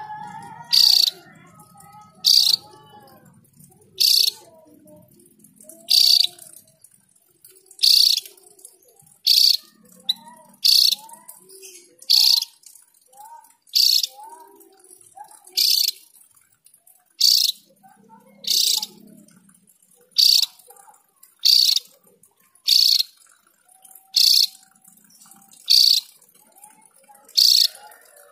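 Javan grey-throated white-eye (opior jawa) calling: a sharp, high note repeated about every second and a half, with softer, lower chirps in between.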